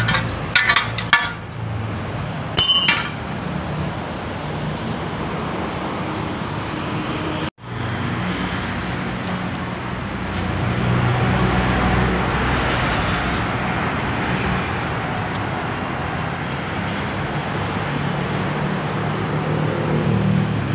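Rusted steel brackets clinking and knocking together as they are handled: a few sharp metallic knocks in the first second, then a ringing clank about three seconds in. Under them and on through the rest runs a steady low mechanical hum.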